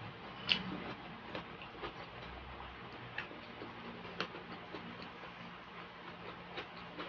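Faint, scattered clicks and small wet taps of eating with bare fingers: a hand working rice and sisig on a tray, with mouth sounds of chewing, the loudest click about half a second in. A faint steady low hum underlies them.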